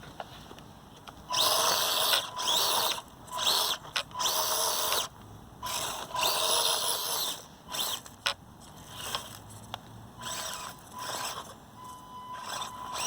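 The Axial SCX24 micro crawler's small electric motor and geared drivetrain whining in repeated short bursts of throttle, the pitch rising and falling with each burst.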